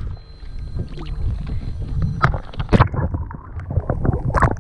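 Handling noise aboard a fishing kayak: scattered knocks and clatter over a steady low rumble.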